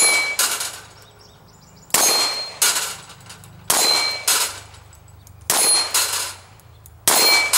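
Glock 17 9mm pistol fired in double taps at steel plates: five pairs of sharp reports, each with the clanging ring of struck steel, the pairs coming about every second and a half to two seconds.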